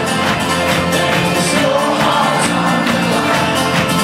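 Live folk-rock band playing loud in a theatre, with strummed acoustic guitars, upright bass and keyboard over a steady beat, recorded from among the crowd.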